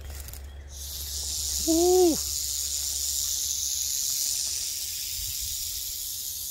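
Timber rattlesnake rattling its tail: a steady, high buzz that starts under a second in and keeps going, the snake's warning before it strikes. About two seconds in there is a short voiced exclamation that rises and falls.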